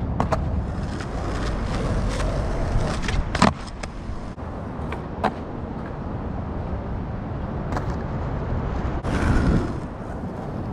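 Skateboard wheels rolling on rough asphalt with a steady rumble, broken by sharp clacks of the board hitting the ground during flatground tricks, the loudest about three and a half seconds in. A brief louder swell of noise comes near the end.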